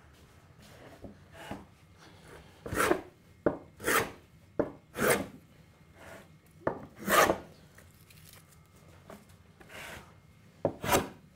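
Scrub plane cutting into a wooden board in short, quick strokes: about six separate scraping swipes at uneven intervals, taking heavy shavings off a high spot on the board's face.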